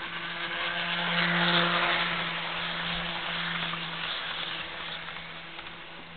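HO-scale Jouef Turboliner model, re-powered with a Kato drive, running past on its track: the running noise of its wheels and motor swells to its loudest about a second and a half in, then slowly fades as the cars go by. A steady low hum sits underneath.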